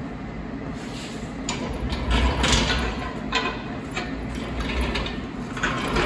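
Steel engine stand carrying a tractor engine block being pushed and swung around on new swivel casters, the casters rolling over a concrete floor with a low rumble and short clunks and rattles. It starts about a second and a half in and rolls easily, the test of the swivel-caster fix.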